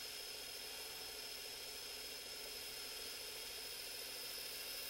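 Sylvania SV2000 VCR/DVD combo rewinding a VHS tape: a steady, faint whir with a thin high tone.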